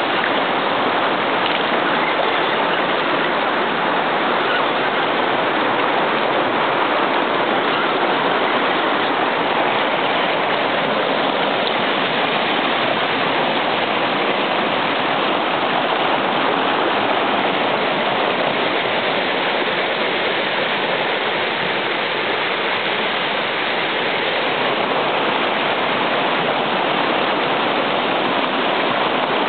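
Creek water rushing steadily over rapids, a loud, even rush.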